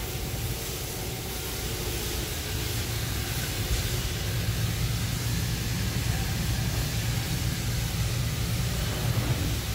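Steady low machine hum with a hiss of air from a running industrial fiber laser cutting machine.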